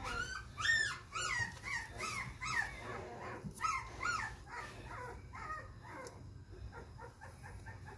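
Three-week-old XL American Bully puppy crying: a rapid run of short, high whimpers that rise and fall in pitch, about two or three a second, growing fainter in the second half.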